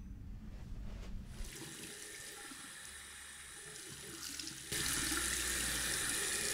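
Water running from a wall-mounted tap into a bathroom basin: a soft hiss at first that suddenly becomes much louder and fuller about two-thirds of the way through, then cuts off abruptly at the end.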